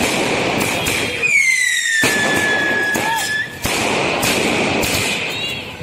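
Diwali fireworks going off: repeated sharp bangs and crackling over a steady hiss. A whistling firework sounds from about a second in and holds for about two seconds, its pitch falling slightly.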